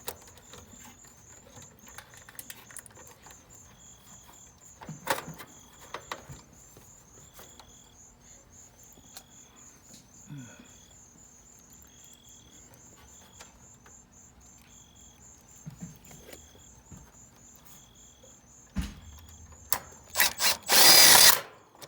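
Power drill driving a screw to mount a run-capacitor bracket on a heat pump: a few short bursts near the end, then one longer run of about a second. Earlier there are a few clanks and knocks, over steady chirping of insects.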